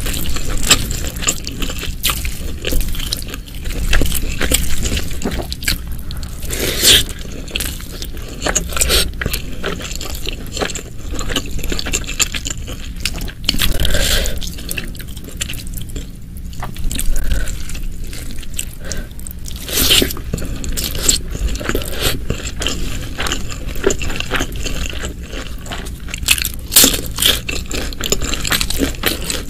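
Close-miked ASMR eating of a spicy beef-rib and vegetable meal: wet chewing, biting and crunching with many sharp mouth clicks and smacks.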